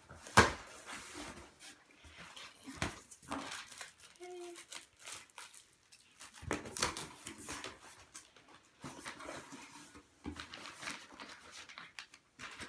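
Cardboard shipping box being opened by hand: irregular knocks, scrapes and rustles of the cardboard flaps and the packing paper inside, with a sharp knock just after the start and a short high squeak about four seconds in.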